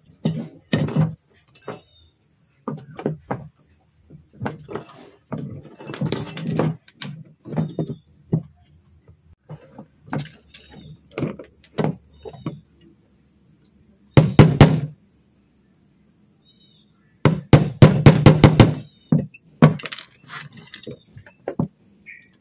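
Knocks and clatter of hand tools and metal fittings handled against a wooden speargun stock and plank floor, in short irregular bursts. A loud burst comes a little past the middle, and a longer run of quick, loud knocks follows a few seconds later.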